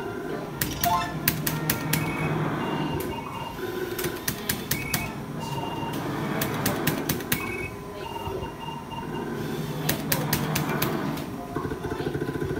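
Electronic bingo machine's game sounds: quick runs of clicks as the balls are drawn, about a second in and again near the end, with short electronic beeps in between, over a bed of voices and music.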